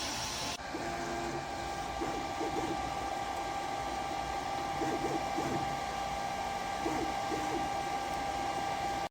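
3D printer running: a steady fan tone, with short pitched stepper-motor moves coming in pairs about every two seconds.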